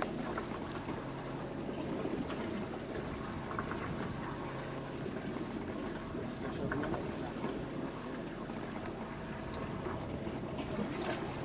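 Steady low hum of a sportfishing boat's engines under a wash of water noise, with a few faint clicks.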